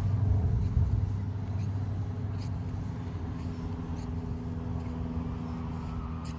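Wind rumbling on the phone microphone, easing after the first couple of seconds, under a steady low hum of a distant engine. Faint footsteps in grass come every second or so.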